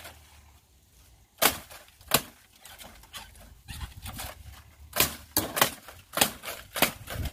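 Dry palm stalks and leaf litter cracking and snapping as they are handled: about eight sharp cracks at uneven intervals, with quiet between them.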